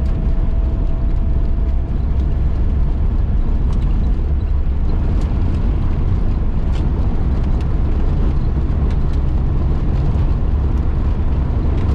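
1972 Datsun 1600 driving at a steady cruise, heard from inside the cabin: a constant low engine and road rumble with a few faint rattles.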